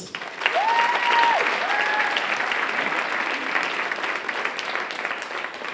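Audience applauding steadily as a person is welcomed onto a stage, with two short whoops from the crowd in the first two seconds; the clapping dies away near the end.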